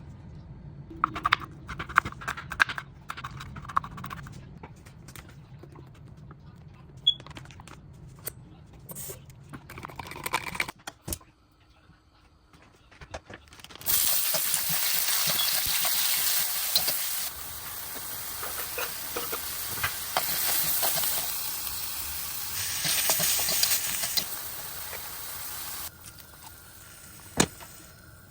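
Kitchen cooking sounds: scattered clicks and knocks of utensils, then about halfway through a loud sizzle of food frying in a hot pan that rises and falls in level and cuts off suddenly a couple of seconds before the end.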